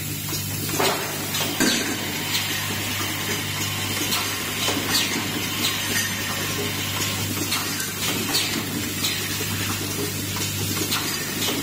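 Automated assembly machine running: a steady low hum under irregular sharp clicks and short hisses of exhausting air from its pneumatic cylinders, roughly one every second.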